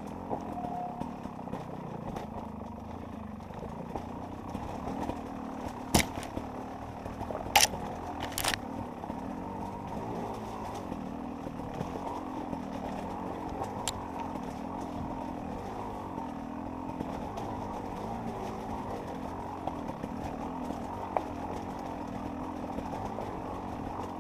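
Enduro motorcycle engine running steadily, wavering a little in pitch, with a few sharp knocks, the loudest bunched about a quarter to a third of the way in.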